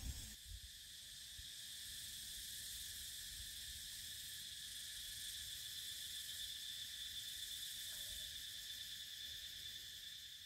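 Insects, cicadas or crickets, droning steadily in a shrill chorus held at several pitches, with a low rumble underneath.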